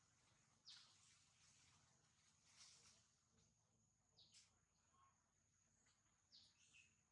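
Near silence: faint outdoor ambience with a steady thin high tone and a handful of brief, faint high chirps.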